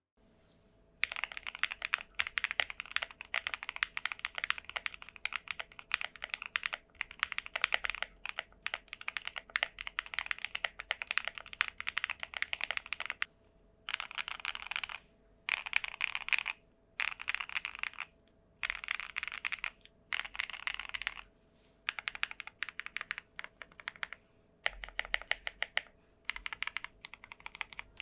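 Typing on a freshly built QK75 mechanical keyboard with Ashen switches and an FR4 plate: fast runs of keystrokes starting about a second in, broken by several short pauses in the second half.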